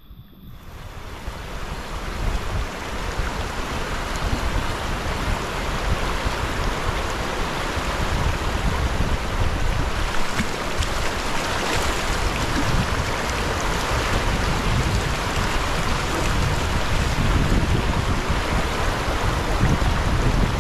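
Fast, shallow river rapids rushing over rocks: a steady dense roar of water, with wind buffeting the microphone. It swells up over the first two seconds, then holds steady.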